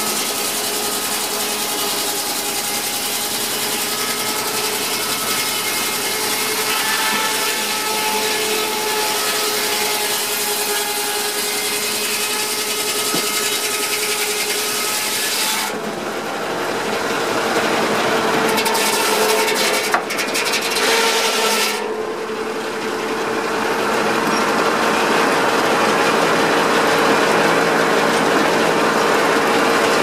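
Large circular saw blade of a steam-powered sawmill ripping through a log with a steady rasping hiss. About halfway through the cut finishes, and the blade spins free with a steady humming tone.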